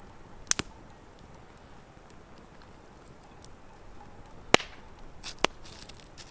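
A few sharp, short clicks: a quick double click about half a second in, then two single louder ones about four and a half and five and a half seconds in.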